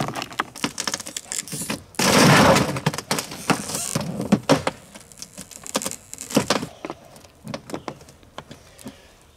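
Shards and slabs of shattered bulletproof glass clinking, crunching and scraping as they are handled, with a dense burst of crunching about two seconds in and scattered clinks that thin out toward the end.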